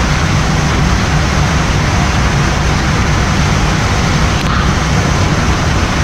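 Boeing 787 in its landing rollout with thrust reversers deployed, heard from the flight deck: a steady, loud roar of reverse thrust and rolling, with a deep rumble underneath.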